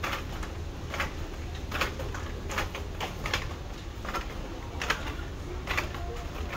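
Footsteps walking at an even pace on a hard floor, a sharp step every second or less, over a steady low hum of the building's air handling.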